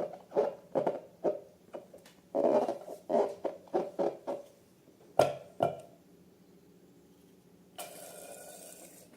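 Short wet squelches and squeaks of slime and rubber balloons being squeezed by hand, two or three a second, stopping about six seconds in. A short hiss of about a second follows near the end.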